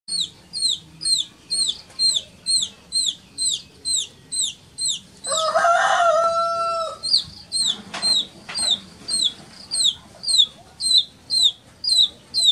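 Baby chick peeping loudly and repeatedly, short high falling peeps about two or three a second: a chick's distress calls. About five seconds in, a rooster crows once, a lower, held call of about a second and a half.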